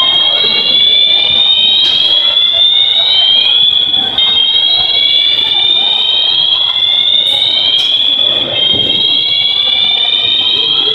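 A mall's building fire alarm sounding continuously: a loud, high-pitched tone that rises slowly in pitch and restarts about every two seconds.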